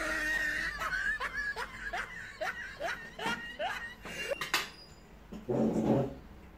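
A person laughing in a run of short, high-pitched rising squeals, about three a second, tapering off after about four seconds.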